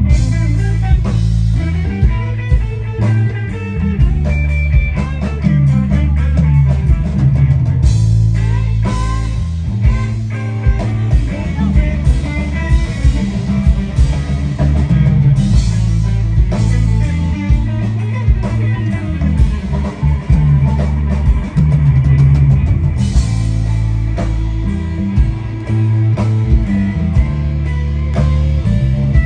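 Live band playing an instrumental passage: electric guitar, bass guitar and drum kit, with a heavy, moving bass line and steady drum hits. The sound is loud and full, as heard from in front of an outdoor stage.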